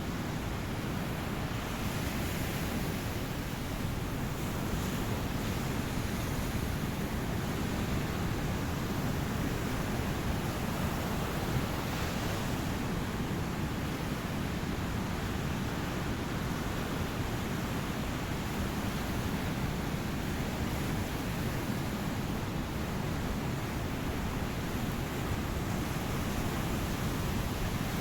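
Ocean surf: waves washing on a beach as a steady, even rush of noise that swells only slightly.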